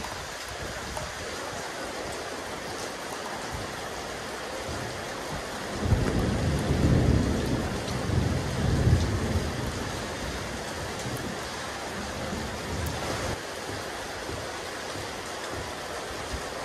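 Steady rain falling on a rooftop terrace, an even hiss of drops. About six seconds in, a deep rumble rises over it for some three seconds and then fades.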